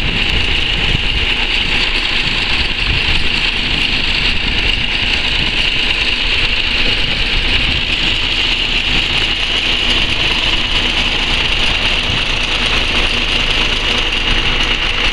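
Kharkiv T-150K tractor's diesel engine running steadily under load while cultivating, a continuous low rumble with a steady high whine on top.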